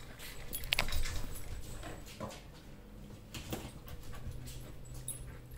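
Dogs making quiet sounds, with scattered light clicks and knocks.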